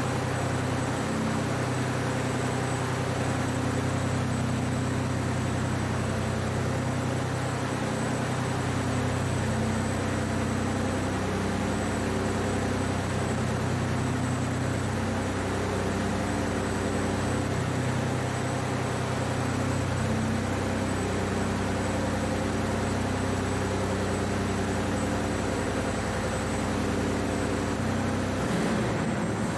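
The THOR show truck's multiple supercharged engines idling steadily.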